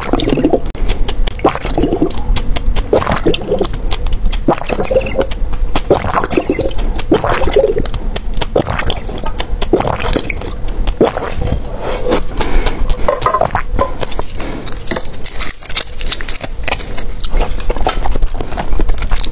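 Close-miked gulping and swallowing of a chia-seed drink, with liquid sloshing and wet mouth clicks. Near the end, small crinkling and clicking of a plastic candy container being opened.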